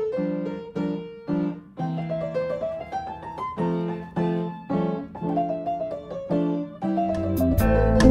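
Outro music: a piano or electric piano plays repeated chords with short melodic runs, and a full band with bass, drums and guitar comes in near the end.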